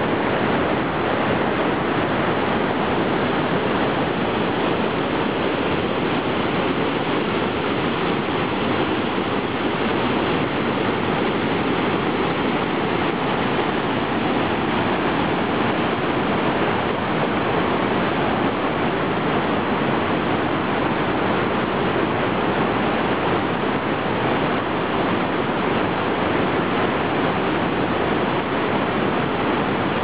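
River waterfall and whitewater rapids rushing steadily over rock ledges, a loud, even rush of water.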